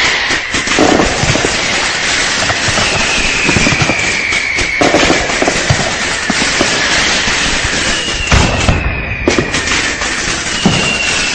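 Fireworks going off in a dense barrage of bangs and crackles, with three long whistles falling slowly in pitch rising above them.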